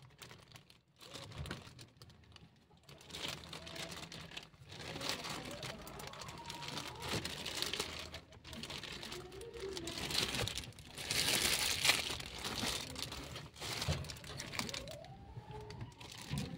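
A thin plastic bag crinkling and rustling in irregular bursts as the birthing mother cat moves against it, loudest about eleven seconds in. A few faint, short gliding mews sound over it.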